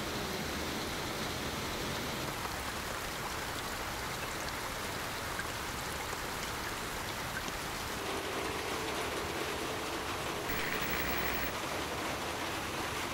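Steady rain falling and splashing into puddles, a constant even hiss.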